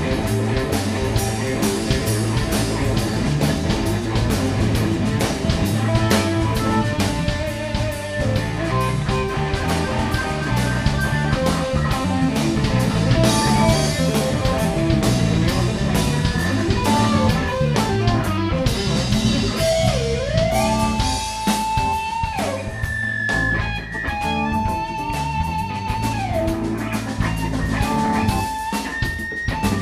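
Live blues-rock band playing: drums, bass and keyboards under electric guitar. In the second half the lead line holds long notes bent up and down, typical of a blues guitar solo.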